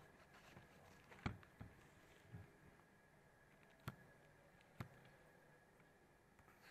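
Faint, scattered knocks and taps of a cardboard smartphone box being handled and set down on a plastic bag, about five in all, the sharpest a little over a second in.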